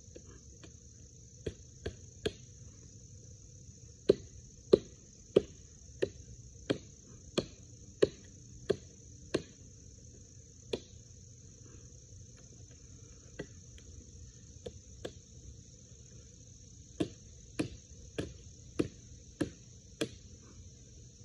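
Tomahawk chopping into a small dead tree trunk, sharp woody chops in runs. A few light strikes, then a steady run of about nine at roughly one and a half a second, a few scattered blows, and another run of about six near the end.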